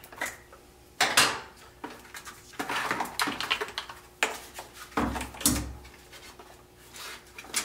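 Plastic battery door being unclipped and a LiPo battery pack pulled from an RC truck's battery tray: a string of clicks, plastic clatter and rustling, with two dull thuds about five seconds in as the pack is set down on a steel workbench.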